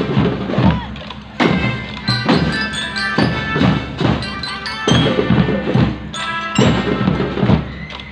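Marching drum band playing: loud drum hits at irregular intervals, with a melody of ringing, bell-like mallet percussion over them.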